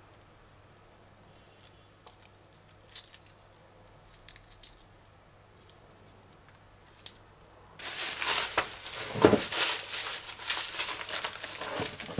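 Hands pulling apart onion layers, a few faint clicks at first, then from about eight seconds in a loud, dense crinkling and rustling of dry, papery onion skins being handled.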